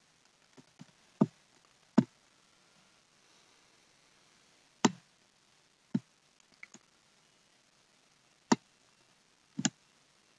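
Computer mouse clicks: sharp single clicks a second or few apart, with a quick double click near the end and a few fainter ticks between.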